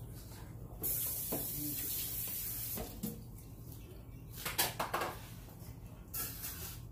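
Kitchen tap running in a hissing stream for about two seconds, then a few clinks and clatters of dishes.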